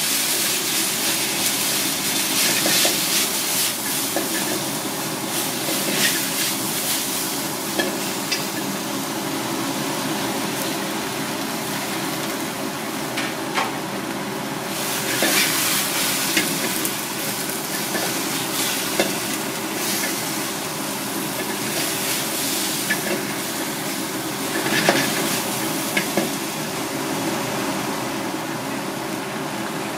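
Leafy greens stir-frying in a wok over a gas burner: a steady sizzle that swells louder several times, with a few sharp clicks of chopsticks against the pan and a steady low hum underneath.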